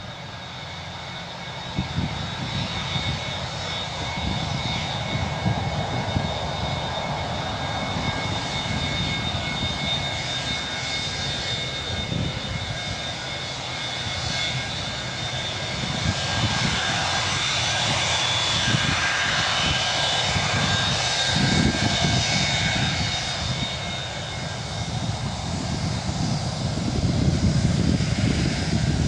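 Boeing 737-200's Pratt & Whitney JT8D turbofans at take-off power: a steady high whine over a deep rumble, growing louder toward the end.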